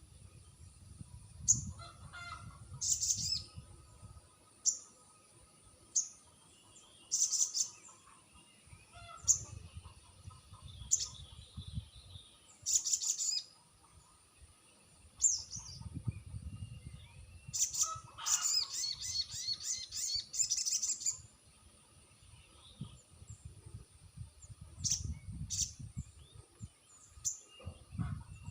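Sogon bird singing: sharp, high single chirps repeated every second or two, broken by bursts of rapid chattering, the longest running for about three seconds near two-thirds of the way in. A low rumble comes and goes underneath.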